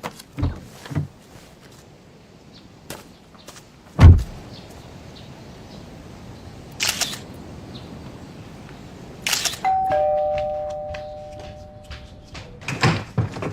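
A few scattered knocks and thuds, the loudest about four seconds in, then a two-note doorbell chime rings out about ten seconds in and fades over a couple of seconds, followed by more knocks near the end.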